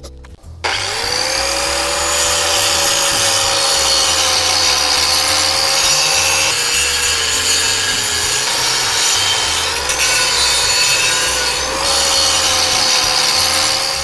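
A handheld electric abrasive power tool spins up with a quick rising whine about half a second in, then runs steadily as it grinds the motorcycle's chrome, its whine sagging in pitch now and then. It cuts off just before the end.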